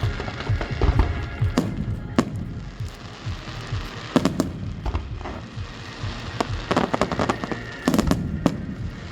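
Aerial fireworks bursting: irregular sharp bangs and crackles, some single and some in quick clusters, thickest about halfway through and again near the end. Music plays underneath.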